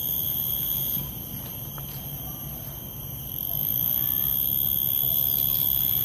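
Insects droning in a steady high-pitched whine, several tones held without a break, with a few faint bird chirps.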